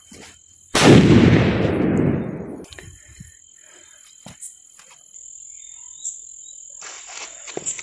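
A firecracker going off with one loud bang about a second in, its echo dying away over about two seconds.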